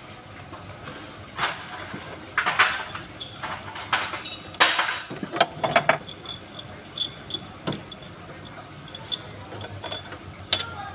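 Scattered metallic clinks and knocks of hand tools and engine parts being handled: about a dozen sharp taps at uneven intervals, the loudest a little before halfway.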